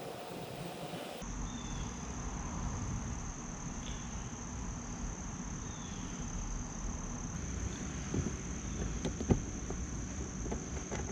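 Steady high-pitched insect trill over a low rumble, with a few light clicks near the end.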